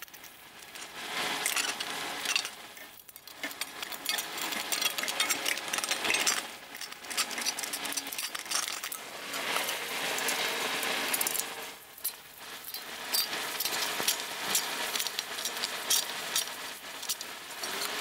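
A hand-lever sheet-metal stretcher clacking as its jaws grip and stretch the flange of a sheet-metal patch panel, mixed with the panel rattling and scraping as it is handled. Sharp metallic clicks come more often in the second half.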